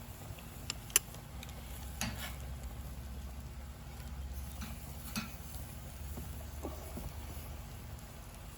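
Chicken breasts sizzling on a grill over a wood fire, with a few sharp crackles scattered through and a low steady rumble underneath.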